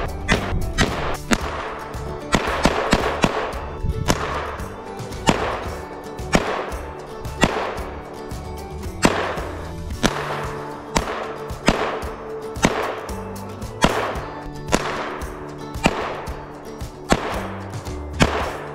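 SKS semi-automatic rifle (7.62×39mm) firing single shots at an uneven pace, roughly one a second, each shot trailing off in an echo, with background music.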